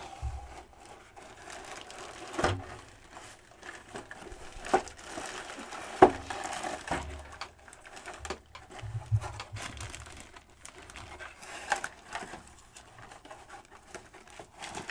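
Unpacking a boxed toy: plastic and cardboard packaging crinkling and rustling as parts are handled, with a few sharp clicks and knocks, the loudest about halfway through.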